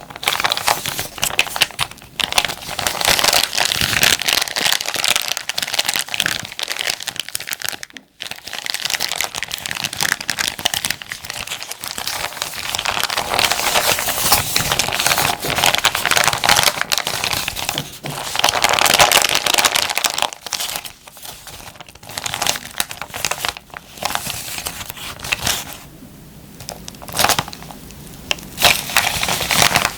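Plastic zipper bag being crinkled and crumpled by hand: a dense, continuous crackle, with a brief break about eight seconds in and a quieter stretch near the end.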